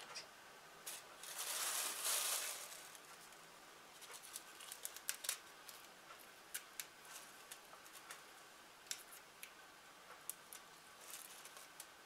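Faint handling noises of onions and plastic: a rustle lasting a couple of seconds about a second in, then scattered light clicks and taps as onions are set into a plastic sprouting tray and taken from a plastic bag.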